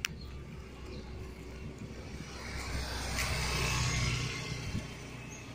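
A motor vehicle passing by on the road, swelling to its loudest about three to four seconds in and then fading, over a steady low rumble. A single sharp click sounds at the very start.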